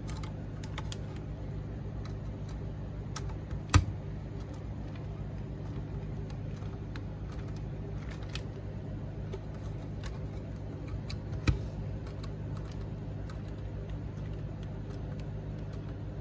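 Small clicks and taps of a hand screwdriver driving screws into a plastic mounting bracket, with two sharper clicks, one about four seconds in and another past eleven seconds, over a steady low hum.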